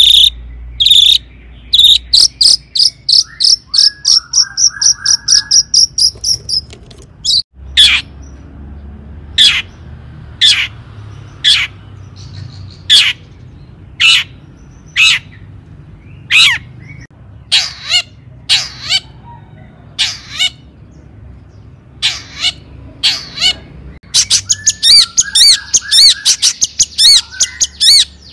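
Long-tailed shrike (cendet) calling: a fast run of short, high notes, then loud, separate calls that sweep downward, about one a second, then another fast rattling run near the end.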